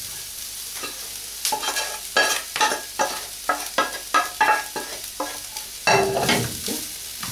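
Wooden spatula scraping and knocking cooked rice out of a nonstick saucepan into a frying pan, a quick run of knocks about two or three a second. Near the end the empty saucepan is set down on the hob with a louder knock.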